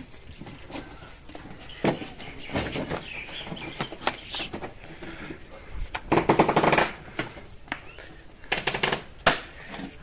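A cardboard refrigerator carton and its plastic strapping being handled: scattered sharp knocks and taps on the cardboard. A rapid crackling rattle lasts about a second, starting about six seconds in, and a shorter one comes near the end, followed by a single sharp snap.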